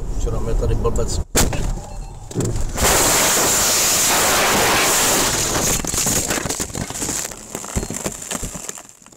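A car crash heard from inside the car: engine and road rumble, a sharp impact about a second and a half in, then several seconds of loud, steady crashing noise that fades near the end.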